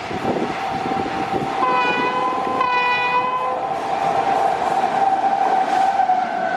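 An express train's horn sounding as the train runs past. One steady horn note holds throughout, with a second, brighter horn note joining for about two seconds early on. The held note drops slightly in pitch near the end, all over the steady rush of the moving train.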